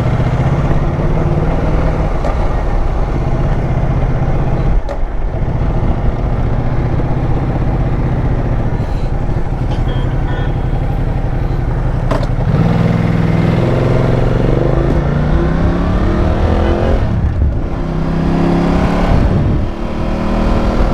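Ducati motorcycle engine running in traffic, then accelerating hard about two-thirds of the way in: the pitch climbs, drops at a gear change, and climbs again.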